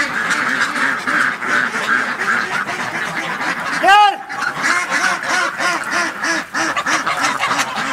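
A flock of domestic ducks quacking in a continuous chorus, several short quacks a second overlapping. About four seconds in there is one louder, higher call.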